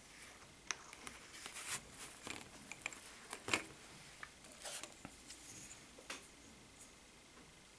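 Faint, irregular light clicks and rustles of bobbin-lace threads and bobbins being handled on the lace pillow, the sharpest click about three and a half seconds in.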